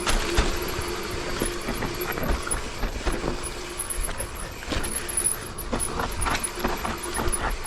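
Mountain bike descending a rough dirt trail: tyres rumbling over dirt and roots, with irregular knocks and rattles from the bike and gusts of wind on the microphone.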